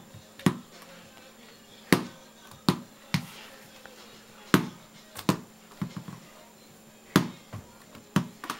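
Small rubber toy basketball being dribbled on the floor: about ten sharp, unevenly spaced bounces, some following each other in quick pairs.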